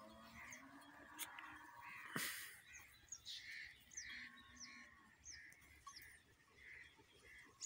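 Birds calling faintly: a run of short calls repeated about twice a second, with high, thin downward chirps over them. A single sharp click comes about two seconds in.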